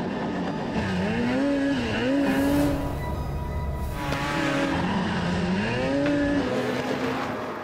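Snowmobile engine revving up and down several times, its pitch rising and falling with the throttle. Twice there is a hissing scrape as the sled slides over bare pavement.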